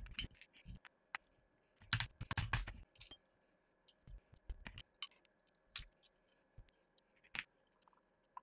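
Small metal parts and tools from an airsoft rifle's lower receiver (pins, trigger, hammer, Allen keys) clicking and knocking as they are handled and set down on a desk mat. A quick cluster of knocks comes about two seconds in, then single clicks.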